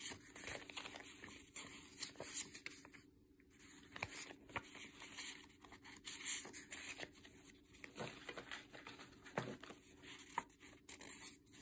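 A stack of thin printed paper sheets being leafed through by hand: soft, intermittent rustles and flicks of paper as sheet after sheet is turned, with a short lull about three seconds in.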